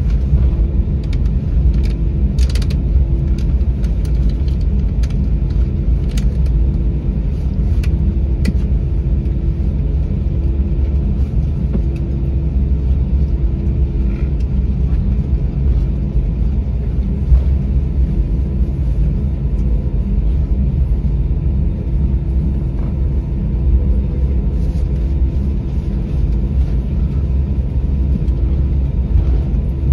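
Cabin noise of an Airbus A320-family airliner taxiing: a steady low rumble of engines and wheels with a steady hum. Light rattling clicks come in the first several seconds.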